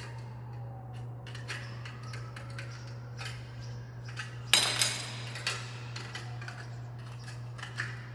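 Tin snips cutting the flanges off light-gauge steel studs: a run of crisp metallic snips and clicks, with one louder clang of sheet steel about four and a half seconds in.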